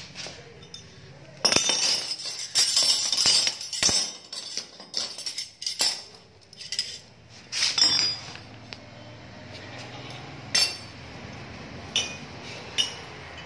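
Steel drain-cleaning rods and their fittings clinking and clattering against each other and a hard stone floor as they are handled and fitted together: a dense run of metal clinks for several seconds, then a few single knocks.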